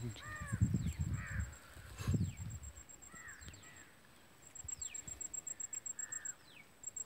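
Birds calling outdoors: short, hoarse, arched calls repeated several times, with thin falling whistles in between. Low rumbling in the first two seconds. From about four and a half seconds there is a fast, high-pitched pulsing chirp, about five pulses a second.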